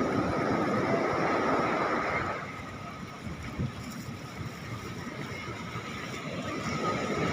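Steady running noise of a fishing boat's engine with wind and water, carrying a faint steady whine; it drops in level about two and a half seconds in and rises again near the end.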